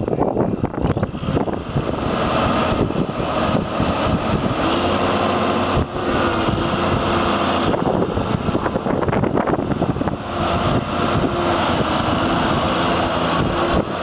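New Holland Versatile TV140 bi-directional tractor's diesel engine running steadily as the tractor drives slowly. A faint whine comes and goes over the engine noise.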